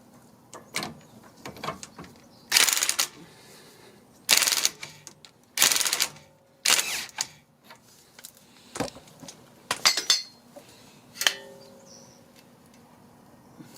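Hand ratchet driving the nut onto a stabilizer link stud in short bursts of rapid clicking, with sharp metallic clinks of tools against the suspension between them.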